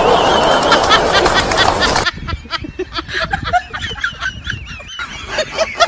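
A loud rushing noise that cuts off about two seconds in, followed by someone snickering in short bursts that come quicker near the end.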